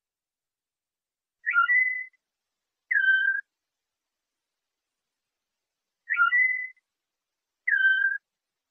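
Flute-like whistled notes from a canary song-training tape: a two-note phrase, each note a quick downward slide into a held pure tone, the second note lower. The same phrase repeats exactly about four and a half seconds later.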